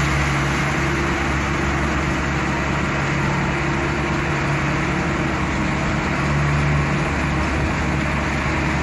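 Truck engine droning steadily under road noise, heard from inside the cab while cruising at highway speed.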